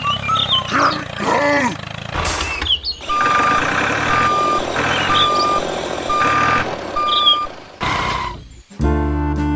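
Vehicle reversing alarm beeping five times, about once a second, over a rumbling engine. Music starts just before the end.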